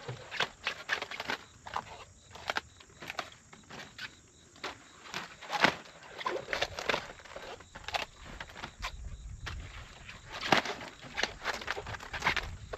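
Irregular crisp snaps, crunches and rustles of cabbage heads being cut and their leaves handled during harvest.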